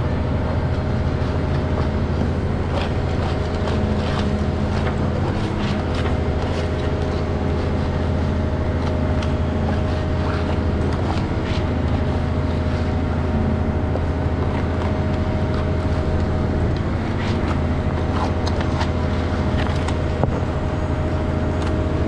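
Heavy engine running steadily at a constant speed, the kind that drives the pump or mixer on a concrete pour, with scattered faint clicks and scrapes from hands and tools working wet concrete.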